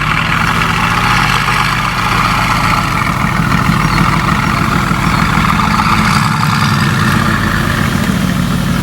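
Mercedes-AMG GT S's twin-turbo V8 idling steadily.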